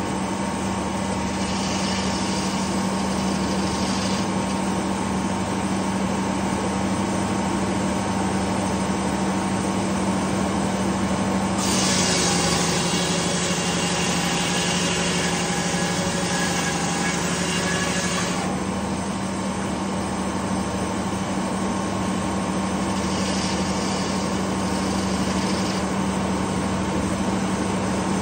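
Detroit Diesel two-stroke engine screaming at steady high speed, driving a large circular sawmill blade. From about 12 to 18 seconds in the blade cuts through a pine log with a loud, bright hissing cut and the engine note drops a little under the load, with two shorter, fainter stretches of blade noise before and after.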